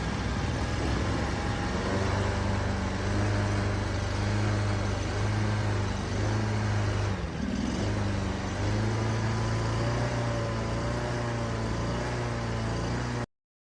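Mud motor's Predator 670cc V-twin engine running steadily with a low, even drone, wavering slightly in pitch and dipping briefly about seven seconds in, then cutting off suddenly near the end.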